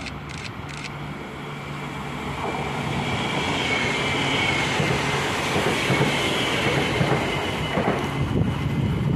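CRRC Sifang SFE-400 series electric multiple unit passing at speed: a rush of wheels on rails that grows steadily louder as it approaches, with a high whine that falls slightly in pitch as the train goes by.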